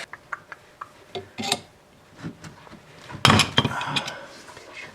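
Metal tools and small parts clinking on a workbench: scattered light clicks, then a louder metallic clatter with a short ring about three seconds in.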